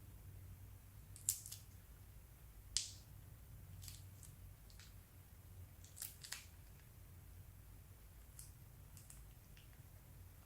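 Slime and plastic piping bags being handled: about ten short, sharp clicks and sticky snaps at irregular intervals, the two loudest in the first three seconds, over a faint low hum.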